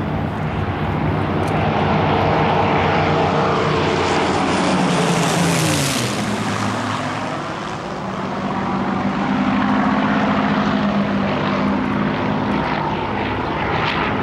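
A formation of Supermarine Spitfires flying past with their Rolls-Royce V12 piston engines running hard. The engine note slides down in pitch about five seconds in as the planes pass, then the sound swells again near ten seconds in on a steadier, lower note.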